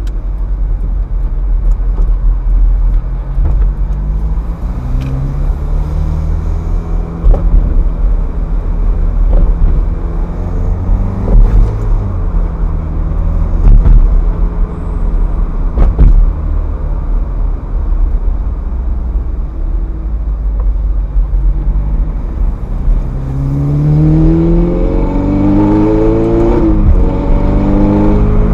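Ferrari F430's V8 engine pulling through the gears: several short climbs in revs with gear changes between them, then a harder acceleration to higher revs a few seconds before the end, over a steady low road rumble. A few sharp knocks are heard in the middle.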